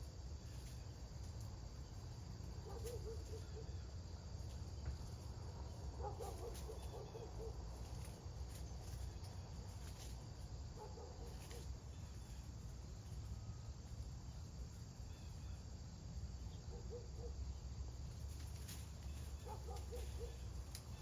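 Outdoor late-summer insects trilling steadily over a low background rumble, with a short, low pulsed call recurring every few seconds.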